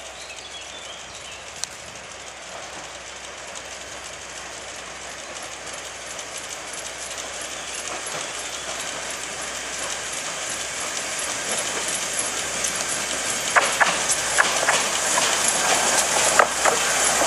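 Narrow-gauge steam locomotive hauling a train as it approaches, its running noise growing steadily louder, with a string of sharp clicks and knocks in the last few seconds as it draws near.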